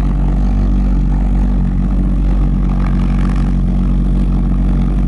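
Pulsejet engine of a V-1 flying bomb running on a ground test stand, a loud, steady low buzz that does not change in pitch or level.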